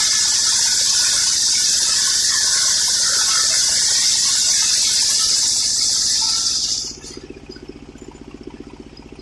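Homemade circular sawmill blade cutting through old coconut-palm wood with a loud, high, steady hiss that cuts off suddenly about seven seconds in. The saw then runs on much more quietly with a steady, rapidly pulsing drone.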